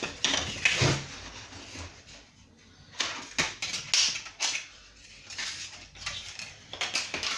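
Thin laminate edging strip being handled and flexed against the chipboard end of a kitchen worktop: irregular short rustles and scrapes, with a few light clacks.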